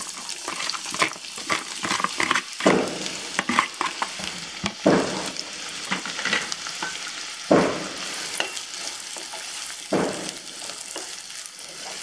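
Chopped onions sizzling as they fry in hot ghee in a nonstick kadhai. A wooden spatula stirs them, its strokes scraping the pan every two to three seconds.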